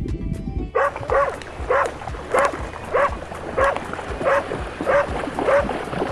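A dog barking in a steady series, about ten short barks roughly one every 0.6 s, starting just under a second in.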